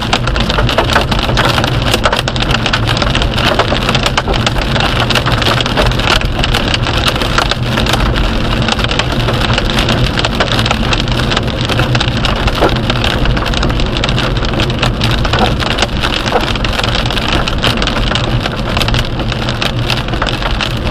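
Hail and rain falling hard, a dense, steady patter of many small impacts striking surfaces.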